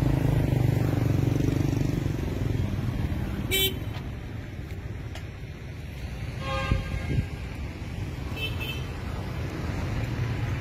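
Road traffic running, with a low rumble for the first three seconds that then eases off. Short horn beeps sound about three and a half seconds in and again around the middle.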